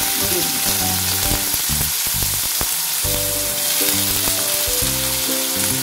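Sliced onions frying in hot mustard oil in a kadai, a loud steady sizzle as they hit the oil.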